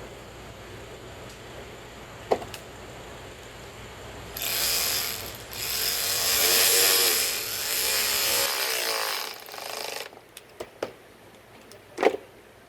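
Hand ratchet clicking as bolts are run into the new plastic switch-panel trim, in a few long spells from about four seconds in to about ten seconds in. A sharp click comes before it and another near the end.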